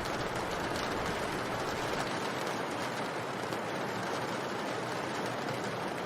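Steady rain ambience: an even, unbroken hiss of falling rain, with a low rumble underneath that drops away about two seconds in.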